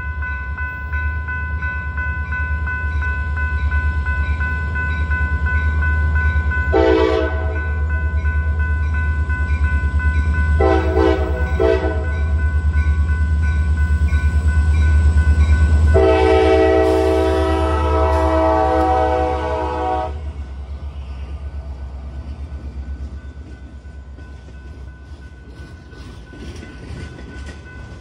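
A diesel-electric freight locomotive approaches and passes, its engine drone growing to its loudest about halfway through under a steady high whine. Its air horn gives two blasts of about a second and a half each, then one long blast of about four seconds. Then the freight cars roll past with rhythmic wheel clicks over the rail joints.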